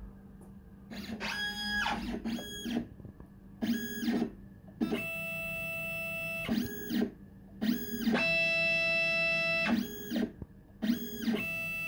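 Stepper motors of a Stepcraft D600 CNC machine whining as the gantry drives the pen head from point to point: a string of pitched tones, each sweeping up as a move starts and down as it stops, most short and two held for about two seconds, over a steady low hum.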